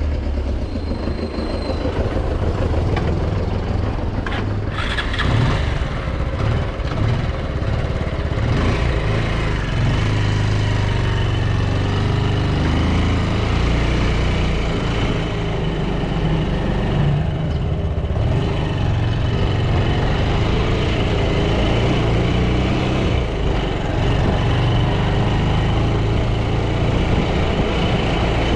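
Bajaj Pulsar 200 motorcycle's single-cylinder four-stroke engine running steadily while being ridden through street traffic.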